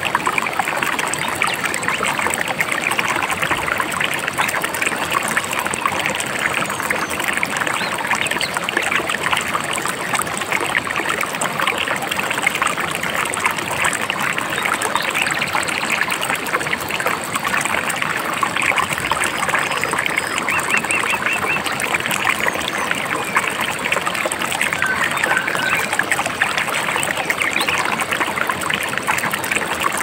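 A babbling river, its water trickling and splashing in a steady, dense rush. A few faint short bird calls come through about two-thirds of the way in.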